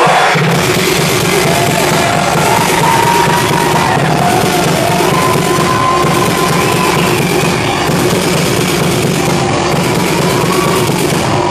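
Loud, hard techno played live over a big sound system, a dense steady wall of sound with heavy bass and long held synth tones, the recording overloaded by the volume.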